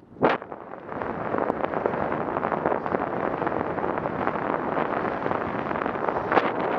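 Wind rushing over a cyclist's camera microphone while riding, a steady noise with a short loud burst just after the start.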